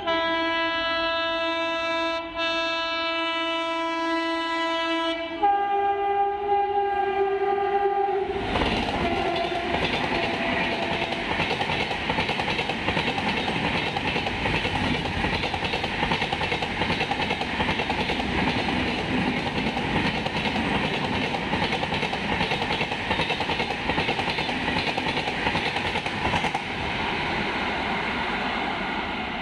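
An express train's locomotive horn sounds one long multi-note chord, changing to a higher chord about five seconds in and stopping about eight seconds in. The train then runs through the station without stopping: a loud, steady rush of wheels on rail with clickety-clack as the coaches pass, easing off near the end as the train draws away.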